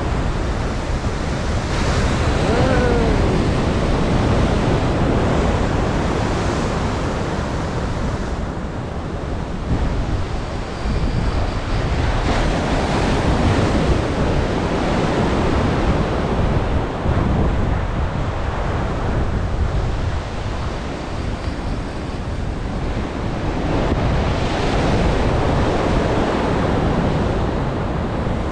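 Ocean surf washing on the shore, rising and falling in slow swells, with wind buffeting the microphone.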